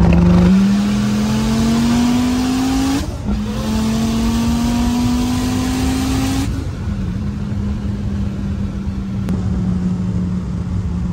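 Dodge Viper V10, tuned to about 1,400 horsepower, pulling hard, heard from inside the cabin: the engine pitch climbs, dips at a gear change about three seconds in and climbs again. At about six and a half seconds the throttle comes off and the engine settles to a steady cruising note.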